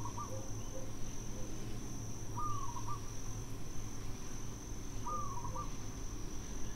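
Nature ambience: a steady high-pitched insect drone, with a short arching call repeating about every two and a half seconds over a low rumble.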